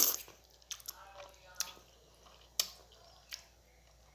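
A loud slurp of instant noodles right at the start, then chewing with a few sharp, wet mouth clicks.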